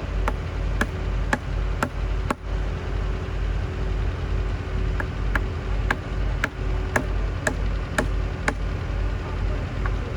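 An engine running steadily at low speed, with a sharp tick or knock about twice a second that stops for a couple of seconds in the middle.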